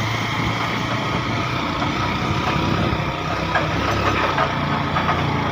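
A vehicle engine running steadily at low revs.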